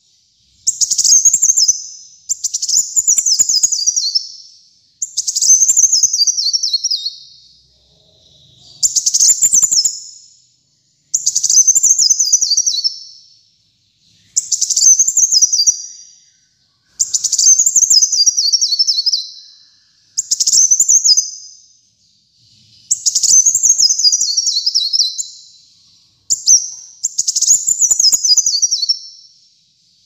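Male sunbird (kolibri muncang) singing persistently: a very high-pitched phrase of quick descending notes, repeated about every two to three seconds with short gaps between.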